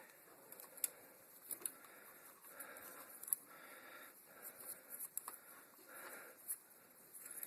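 A few sharp clicks from handling bicycle parts, with repeated short bleats of livestock in the background, one every second or two.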